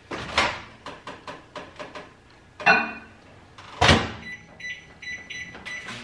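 Over-the-range microwave being worked by hand: a quick run of clicks, a clatter, and a heavy thump of the door shutting about four seconds in, then a string of short electronic keypad beeps.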